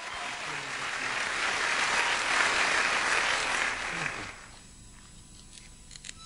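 Audience applause that swells and then dies away about four seconds in, followed by a few light clicks.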